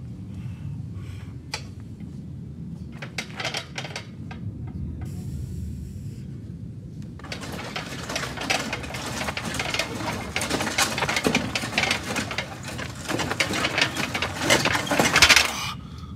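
A heavy strongman super yoke is carried over gravel, giving scattered clicks at first. From about halfway through comes a dense crunching and scraping that grows louder as the load comes closer.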